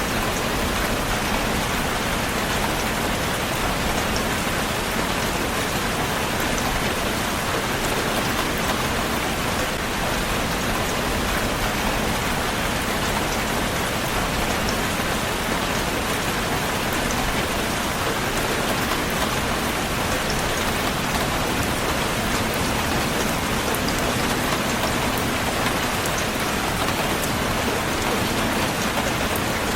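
Heavy rain falling steadily: a constant, even hiss of rain with many small drop ticks mixed in.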